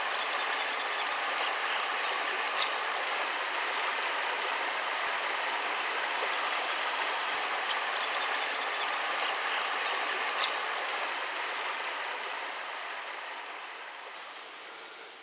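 Shallow river water running steadily over rocks, a continuous rush that fades away over the last few seconds. Three short high-pitched chirps stand out over it, spread through the first ten seconds or so.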